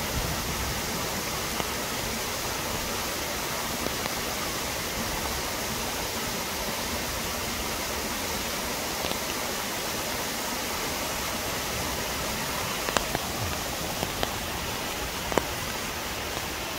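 A waterfall's cascade pouring steadily, a constant rushing of falling water, with a few sharp ticks in the last few seconds.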